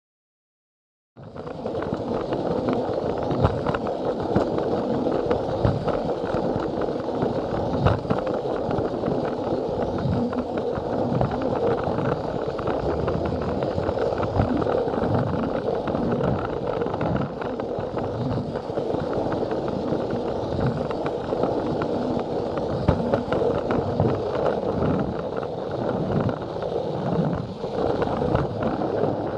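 Plarail toy train running along plastic track, starting about a second in: the steady whir of its battery motor and gears, with frequent clicks and clatter from the plastic wheels rolling over the track joints.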